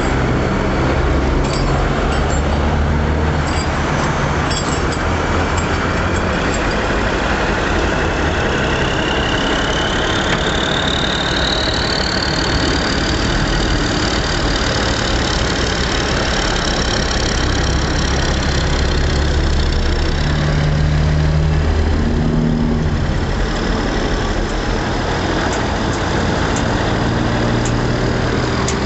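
Heavy diesel engines of fire trucks idling, a steady low rumble under a constant hiss. A high whine rises from about eight seconds in and then holds.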